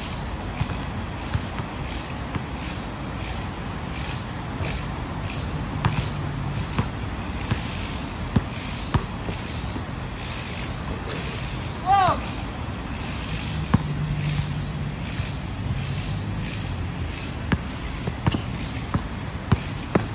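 Basketball bouncing on a hard outdoor court with sharp sneaker squeaks, one about twelve seconds in, as players dribble and drive in one-on-one play. A high pulsing sound repeats about two to three times a second in the background.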